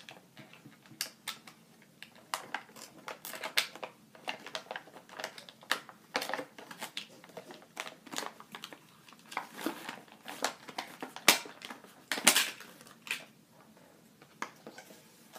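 Stiff plastic toy packaging being handled and pulled at while an action figure is worked free of it: irregular crinkling with many sharp clicks and snaps, some louder ones about 11 and 12 seconds in.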